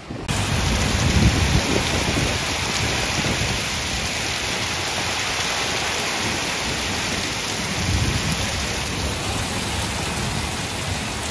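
Heavy rain pouring steadily, starting abruptly just after the beginning, with low rumbles about a second in and again near eight seconds.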